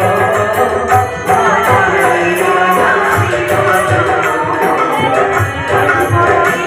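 Loud music with drums and jingling percussion keeping a quick, steady beat under a melody: the accompaniment to a folk stage play.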